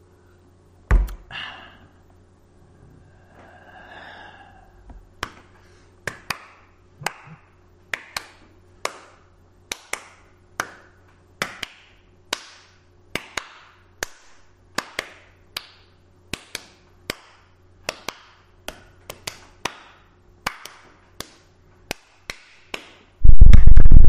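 A slow, regular series of sharp taps, a little more than one a second, after a single louder knock near the start. About a second before the end, a blast of extremely loud electronic music, heavy in the bass, cuts in suddenly.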